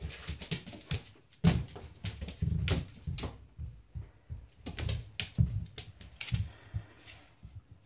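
A Dogue de Bordeaux puppy's claws clicking and paws thumping on a vinyl floor as she scrambles after a rubber ball: irregular clicks and knocks, the loudest about a second and a half in.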